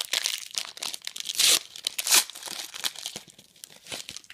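Foil wrapper of a Panini basketball trading-card pack being torn open and crinkled in the hands. The two loudest rips come about a second and a half and two seconds in, then it thins to lighter rustling near the end.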